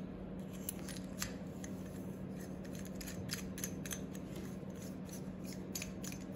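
Brass compression nut being threaded by hand onto a brass reducing fitting on copper pipe: irregular small metallic clicks and ticks as the parts rub and turn against each other.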